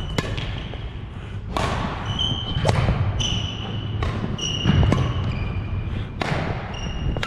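Badminton rally: sharp racket strikes on the shuttlecock every second or so, mixed with repeated short high squeaks of court shoes on a wooden gym floor and dull footstep thuds.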